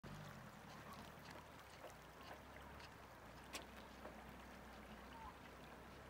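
Faint trickle of a shallow mountain stream running over stones, under a low rumble, with a few small clicks and one sharper click about three and a half seconds in.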